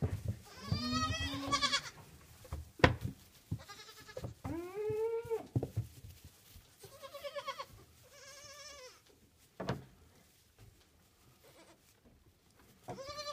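Nubian goat kids bleating: several separate wavering calls at intervals. A sharp knock about three seconds in, and a smaller one near ten seconds.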